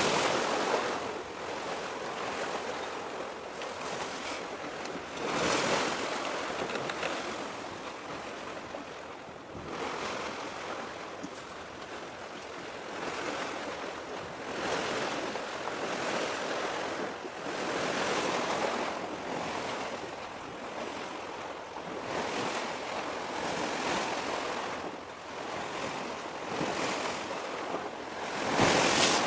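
Sea waves washing in, swelling and falling back every couple of seconds, with wind on the microphone. The strongest surge comes near the end.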